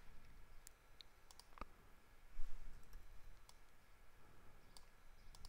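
Computer mouse clicking: a handful of single clicks spaced irregularly, one a little louder about two and a half seconds in, over faint room hiss.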